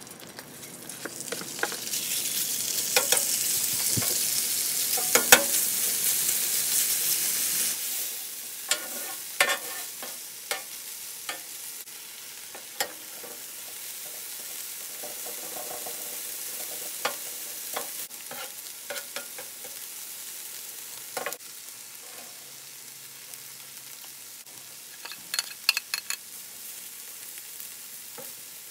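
Marinated chicken chunks sizzling loudly on an oiled Blackstone flat-top griddle, the sizzle dropping to a quieter steady frying about 8 seconds in. A metal spatula scrapes and clacks on the griddle throughout, with a quick cluster of clacks near the end.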